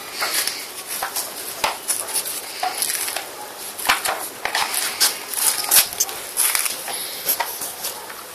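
Two dogs scuffling at play on a tiled floor: a dense run of irregular clicks and scrapes from claws and paws on the tiles.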